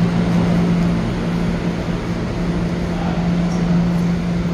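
R211A subway car standing in the station with its doors open, its onboard equipment giving a steady low hum over a constant rushing noise.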